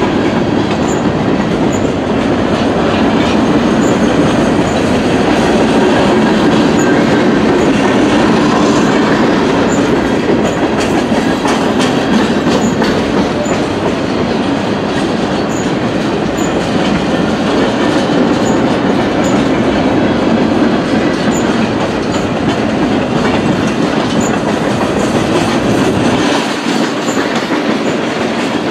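A freight train's cars rolling past, a steady loud rush of wheels on rail. The deep rumble thins out a couple of seconds before the end.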